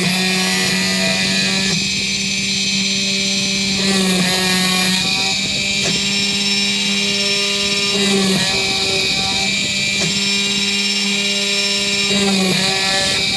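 Small high-speed drill spindle motor on a 3D printer converted into a circuit-board drilling machine, running steadily with a constant whine. Its note wavers briefly about every four seconds, as when the bit is loaded drilling holes in the board.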